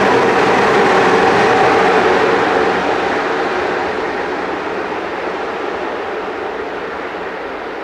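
Freight train of tank wagons hauled by a Romanian Class 40 electric locomotive rolling past: steady rumble and rail noise. It is loud at first, drops about three seconds in, then slowly fades.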